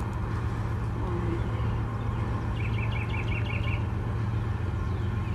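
Steady low engine drone with rumble, unchanging throughout. A bird's quick trill of about six notes comes near the middle.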